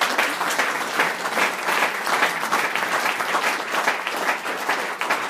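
Audience applauding: many people clapping at once, a dense steady patter.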